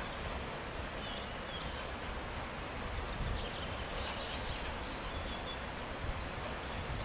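Steady outdoor hiss with birds chirping now and then, and a low rumble of wind on the microphone.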